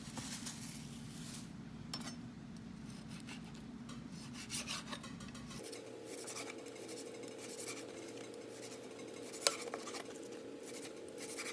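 A knife cutting raw fish into pieces on a cutting board: soft scattered taps and scrapes over a steady background hum.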